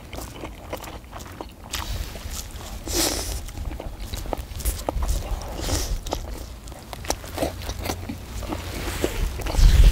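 People eating hot fish cake skewers: biting and chewing, with many small scattered clicks and knocks.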